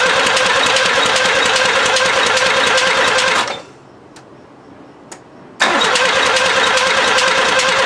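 1986 Honda Civic's carbureted engine cranking on the starter motor with a rapid steady chug but not catching: a no-start. Two cranking attempts of about three seconds each, with a pause of about two seconds between them.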